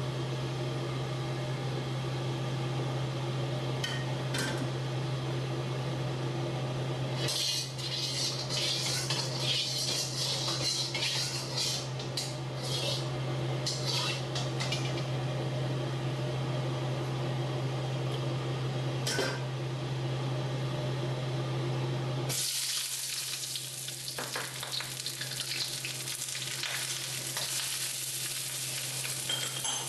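Metal ladle clinking and scraping against a wok as hot oil is swirled around, over a steady low hum. About two-thirds of the way in a steady sizzle starts as diced onion, garlic and chilies go into the hot oil and are stir-fried with the ladle.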